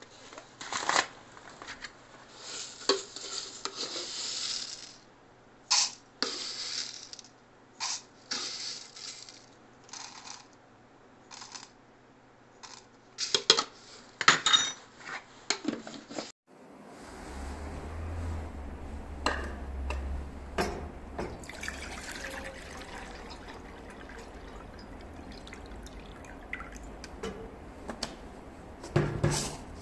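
Dry burdock seeds poured and spooned into a plastic cup on a scale, heard as short rattling bursts with sharp clinks of a metal spoon. About halfway through, this gives way to a steady low hum with water being poured from an electric kettle into a stainless steel saucepan.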